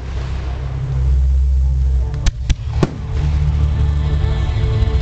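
Aerial firework shells bursting during a finale barrage: a continuous low rumble of distant bursts, with three sharp bangs in quick succession about two and a half seconds in.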